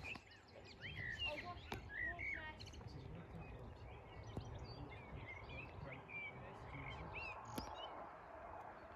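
Small birds chirping and singing in short rising and falling calls, busiest in the first few seconds and sparser after, over a low steady background rumble.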